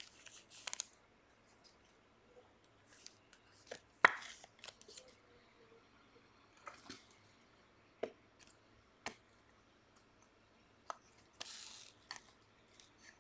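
Trading cards being handled and sorted by hand: scattered light taps and clicks, the sharpest about four seconds in, with a short rustle near the end.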